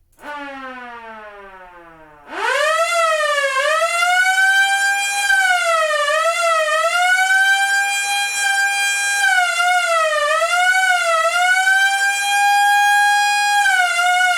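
Old-style police siren. A falling tone fades away for about two seconds, then the siren comes in loud and wails up and down, with long held high tones broken by quicker up-and-down warbles.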